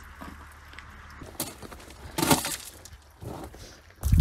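Footsteps scrambling over broken dolomite rock and loose scree: boots scraping and crunching, small stones clinking, with one louder crunch about two seconds in. A loud low bump near the end.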